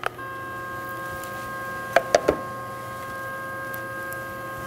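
A Laguna IQ CNC router's axis drive starts with a click and runs with a steady, even whine as the Z axis lowers the tool toward the touch-off puck. A quick cluster of three knocks comes about two seconds in.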